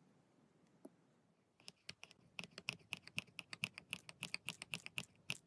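Quick, light metallic clicking, several clicks a second and unevenly spaced, starting about a second and a half in: the hand-worked spring plunger of a miniature brass oil can's pump being pumped on test.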